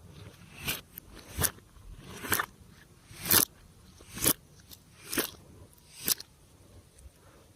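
Slime being pressed and squished by hand, with a crackling, crunchy squelch about once a second, seven times.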